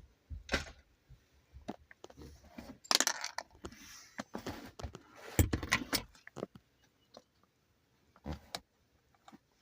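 A small ratchet and loose metal bits clicking, clinking and scraping in irregular bursts as small screws are backed out from behind a gear shifter, with short quiet gaps between.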